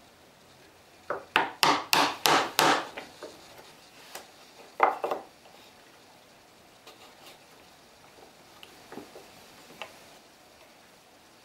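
Hand-pushed wood chisel paring a small notch in the end grain of a wooden block: a quick run of about six sharp cuts, roughly four a second, then a few lighter scrapes. A single louder knock comes near the middle, followed by faint ticks.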